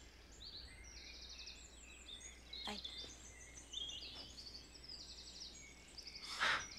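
Small birds chirping and trilling, in quick runs of repeated high notes, over a faint low hum, with a brief soft rush of noise near the end.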